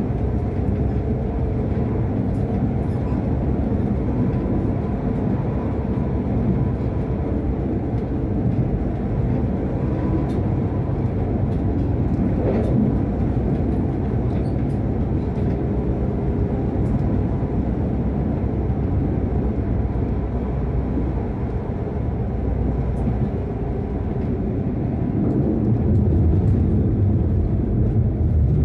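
Tram running along the track: a steady rumble of wheels on rails with a faint steady whine and light scattered ticks, growing a little louder near the end.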